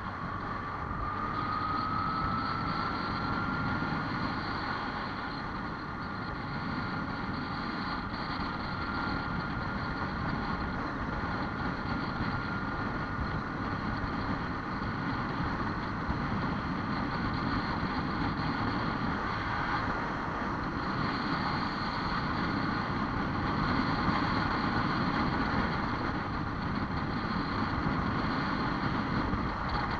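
A vehicle on the move: steady engine and road noise, with a thin whine that rises in pitch over the first few seconds and then holds steady.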